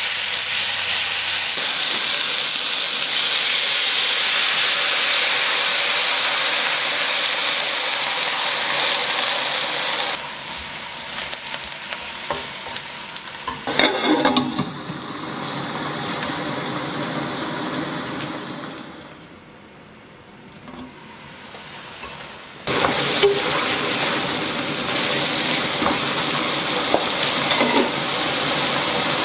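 Bok choy and red pepper sizzling in oil in a hot nonstick wok while a spatula stirs them, with scraping and clicks. About halfway a glass lid is set on the pan with a clatter to steam the greens, and the sizzle turns muffled and quiet, then comes back loud when the pan is uncovered.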